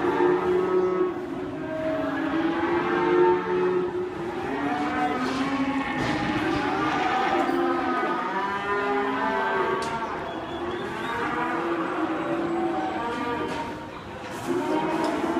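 A group of cattle mooing, many calls at different pitches overlapping one another without a break.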